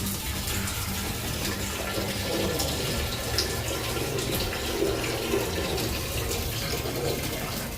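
A man urinating into a toilet: a steady stream of liquid splashing into the bowl's water.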